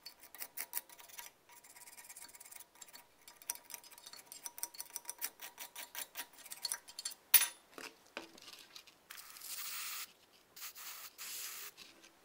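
A screwdriver scraping and picking rust and debris out of the rusted slot in the cast-iron base of a Record No. 5 vise: a fast run of scratchy clicks, with one sharp click about seven seconds in. Near the end come two short hissing sprays, which leave the slot wet.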